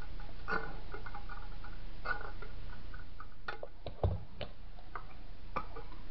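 Scissors snipping through the thin metal wall of a coffee tin, a few sharp cuts in the first half. About four seconds in, the scissors are set down on the table with a clunk, followed by light clicks of the metal tin being handled.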